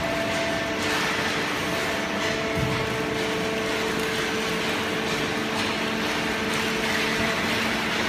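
Horizontal hydraulic waste-paper baler with its chain feed conveyor running: a steady machine hum with a few held pitches over a constant noisy wash.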